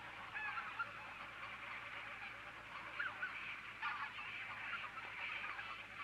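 A large flock of waterfowl calling on the pond: a dense, unbroken chorus of many overlapping calls, with a few louder calls standing out about three and four seconds in.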